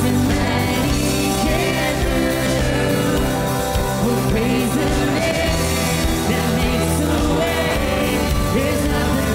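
Contemporary worship band playing live, with singers leading a chorus over a full band of drums, guitars, bass and keyboard.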